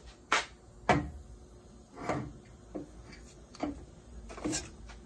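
Handling noise of a heavy starter motor being carried and set down on a table saw: about six separate clunks and knocks at uneven intervals, the sharpest about a second in.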